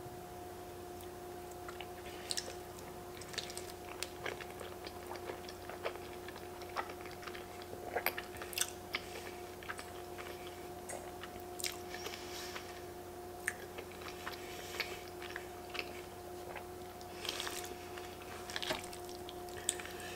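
Close-miked mouth sounds of a person eating creamy fettuccine alfredo: wet chewing, lip smacks and noodle slurps, scattered irregularly. A faint steady two-tone hum runs underneath.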